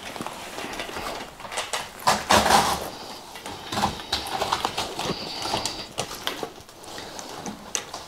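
Screen Innovations Slate 1.2 projector-screen material rustling and crinkling as it is pulled taut over the screen frame, with scattered clicks and knocks as its edge buttons are pressed into the frame. The loudest rustle comes about two seconds in.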